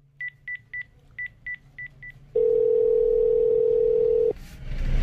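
Red push-button coin pay phone being dialled: seven short high key beeps in quick succession, then a steady lower phone tone for about two seconds that cuts off suddenly.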